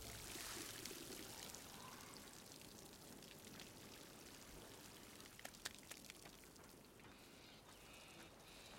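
Faint water spraying from an outdoor shower head and splashing down, a steady hiss that slowly fades, with a few light clicks about five and a half seconds in.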